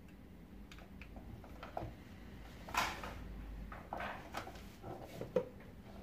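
Scattered light clicks and knocks of plastic parts and wire connectors being handled while wires are fitted to a vacuum cleaner's cable reel. The loudest knock comes about three seconds in.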